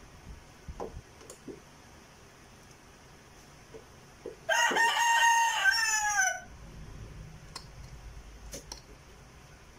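A rooster crowing once, loud and about two seconds long, the call dropping in pitch at its end. A few faint knocks come before and after it.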